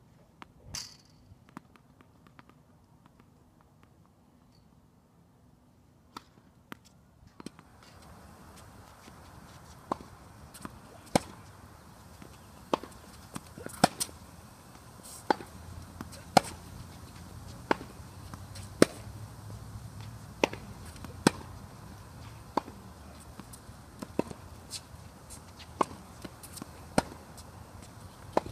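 Tennis ball strikes and bounces in a rally, sharp pops coming about once a second. A low background noise comes up about seven seconds in. Before that there are only a few scattered pops and a brief squeak.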